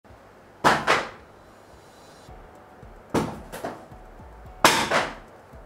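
Three loud, sharp impact hits about two seconds apart, each with a quick second hit and a short ringing tail.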